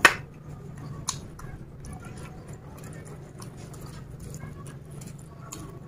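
A sharp knock at the start, a drinking glass set down, then a lighter click about a second in. After that, small clicks and soft scraping of fingers working biryani rice on a steel tray, with chewing.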